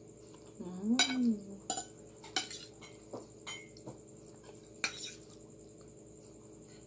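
Metal fork clinking and scraping against a ceramic plate of pasta: a handful of separate sharp clinks, spread over the first five seconds. About a second in comes a brief hummed "mm", rising then falling in pitch, the loudest moment.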